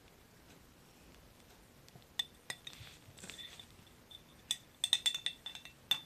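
A metal spoon clinking against the inside of a glass honey jar while honey is scooped out. There are two clinks about two seconds in, then a quick run of sharper, ringing clinks near the end.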